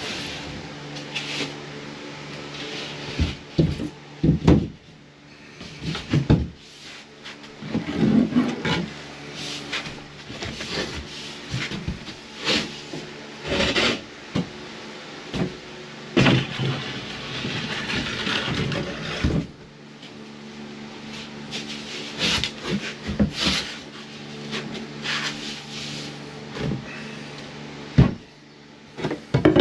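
Knocks, bumps and scraping as a sheet of drywall is spun around and flipped by hand, over a steady low hum.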